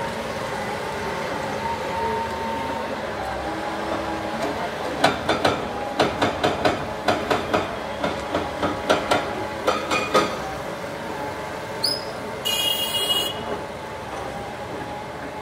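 Demolition excavator's engine and hydraulics running steadily with a whine that shifts a little in pitch. From about five seconds in, a run of sharp knocks, two to three a second for about five seconds, then a short high squeal lasting about a second.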